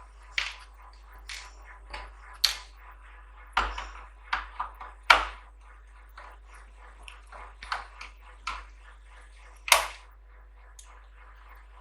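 Sharp, irregular clicks and knocks of a household voltage stabilizer's casing and parts being handled as it is opened up, about a dozen over several seconds, the loudest about five and ten seconds in.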